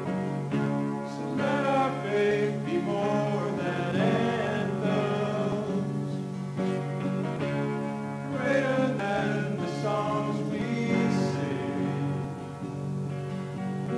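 Live worship band playing a congregational song: strummed acoustic guitar and electric guitar under voices singing the melody.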